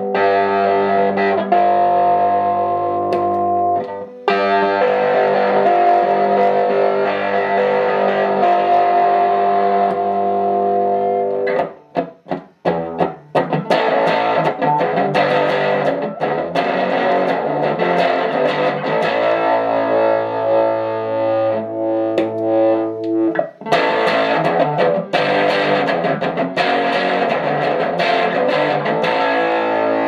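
Electric guitar played through a Phoenix Fuzz Driver fuzz pedal, heavily distorted, with held chords ringing for several seconds at a time. About twelve seconds in come a few short, choppy stabs, and from about twenty-three seconds in the tone turns brighter and harsher.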